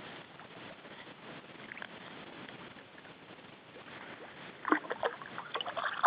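A faint steady outdoor hiss, then a quick cluster of light knocks and rattles starting about three-quarters of the way in.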